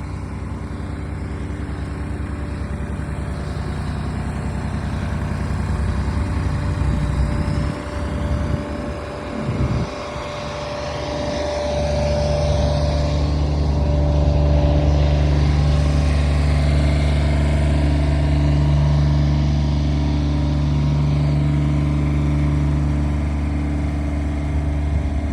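An engine running steadily, dipping and changing pitch briefly about eight to ten seconds in, then running louder and steady for the rest.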